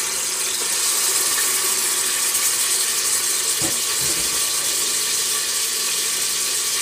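Pieces of pork belly frying in hot oil in a pot for torresmo, a steady hissing sizzle. Two soft knocks a little past halfway.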